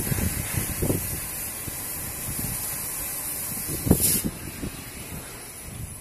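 Flame burning out of the port in a heat-treatment furnace's door: a steady hissing roar with an irregular low rumble. A sharp pop with a brief burst of hiss comes about four seconds in, and the sound is quieter after it.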